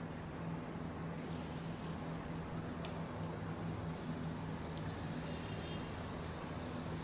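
Marinated chicken breast laid onto a buttered flat-top griddle and frying. The sizzle starts abruptly about a second in and carries on steadily over a low, steady hum.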